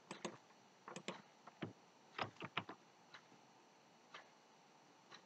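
Faint, scattered clicks of a computer mouse and keyboard, about ten in all, some in quick pairs.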